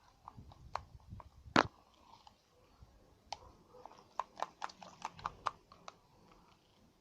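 Plastic slime-maker container and sticky slime being handled and stirred: scattered clicks and knocks, one loud knock about a second and a half in, then a quick run of sharp clicks.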